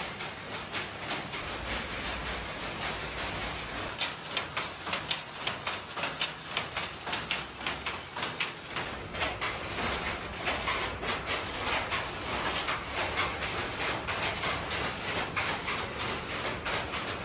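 Weaving looms making Banarasi saree fabric clatter steadily, with sharp repeated clacks of about two to three strokes a second.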